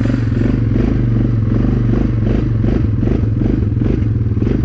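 Honda Recon 250 ATV's single-cylinder engine running steadily, with repeated clattering knocks from the machine several times a second.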